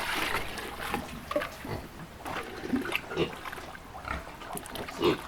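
Pigs grunting while they feed, with scattered short clicks and knocks and a short rush of noise at the start.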